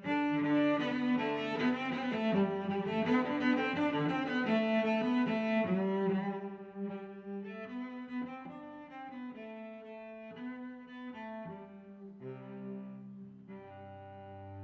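Background music played on bowed strings, with cello prominent; the notes are fuller and louder for the first six seconds, then quieter and sparser.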